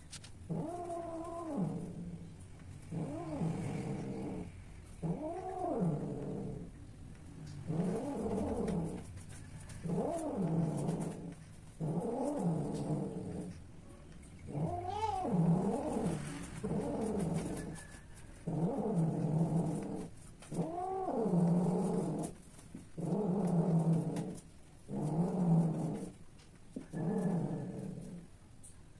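Domestic cat yowling again and again during mating, as the tom mounts and grips a female in heat. Each long call rises and falls in pitch, and they come about one every two seconds.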